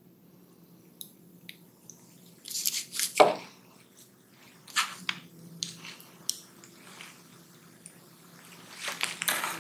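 Faint handling sounds: scattered small clicks and short rustles as a metal jump ring and small 3D-printed plastic hearts are handled by hand.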